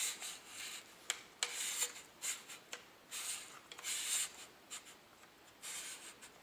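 AR-15 buffer tube being screwed into the lower receiver, metal threads scraping in short, scratchy bursts as it is turned, with a few light clicks of the end plate and castle nut.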